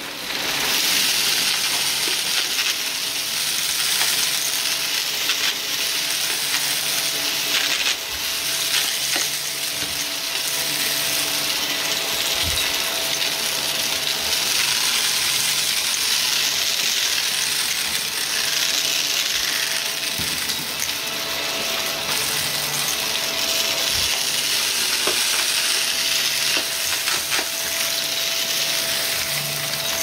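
Vacuum cleaner running over carpet scattered with crunchy debris, a dense crackle as the bits are sucked up over a steady motor tone.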